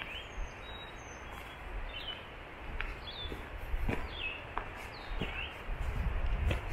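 Footsteps crunching along a gravel and dirt trail, roughly one to two steps a second, while small birds give short falling chirps every second or so over a steady outdoor hiss. A low rumble on the microphone builds near the end.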